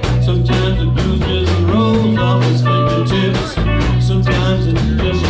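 Live blues band playing an instrumental passage: electric guitar lines over a bass and a steady drum beat.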